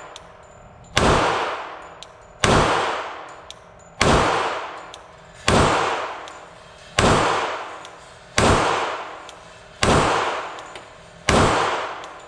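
Glock 30SF pistol firing .45 ACP 230-grain full metal jacket rounds in slow, steady single shots, eight in all, about one every one and a half seconds. Each shot rings out with a long echoing tail off the concrete walls of the indoor range.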